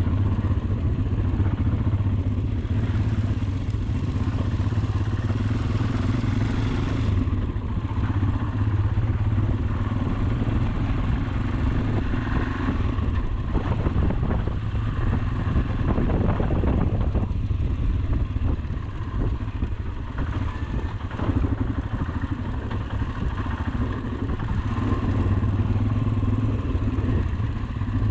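Motorcycle engine running steadily while riding, with rattles from the rough road.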